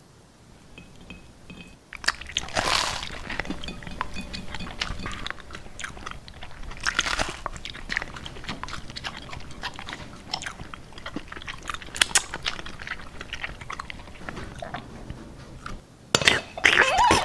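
Close-miked ASMR eating sounds: crunching and chewing, as of biting into crisp food. They start about two seconds in, with loud crunches at intervals and the loudest burst about a second before the end.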